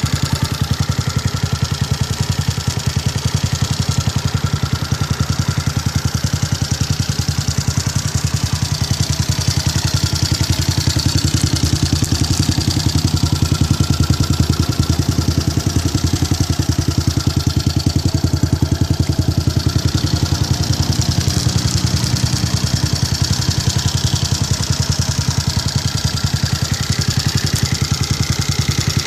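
Honda Sonic 125 motorcycle's single-cylinder four-stroke engine idling steadily.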